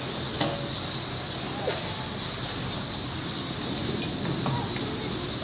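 Steady high-pitched drone of summer cicadas, with a faint knock about half a second in and a brief faint squeak a little later.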